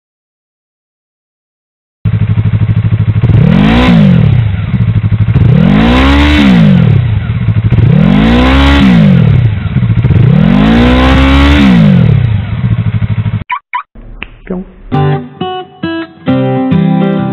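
Yamaha YZF-R3 parallel-twin engine running through an aftermarket Akrapovic carbon slip-on muffler, starting after about two seconds of silence: idling and revved four times in short blips, each rising and falling in pitch. It cuts off near the end, and acoustic guitar music begins.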